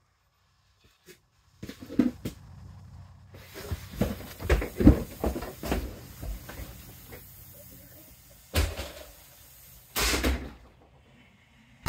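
Firework mortar shell's fuse sputtering and crackling, then a sharp thump about eight and a half seconds in and a loud blast about ten seconds in as the shell explodes inside the RV toilet.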